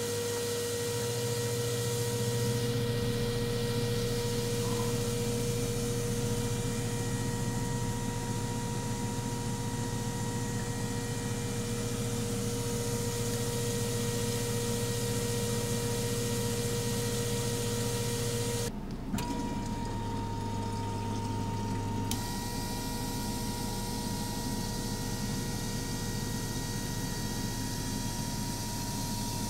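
ASNU fuel-injector test bench running six Bosch 0280158116 injectors on a spray test: a steady mechanical hum and buzz from the bench's pump and pulsing injectors, with a hiss of atomised test fluid. About two-thirds of the way through the sound breaks for a moment and the hiss drops for a few seconds. It then carries on with a higher-pitched buzz.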